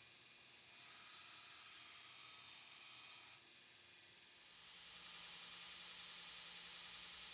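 Faint steady hiss of a belt grinder, brighter for about three seconds while a steel chisel blade is held against the abrasive belt. A faint low hum joins about five seconds in.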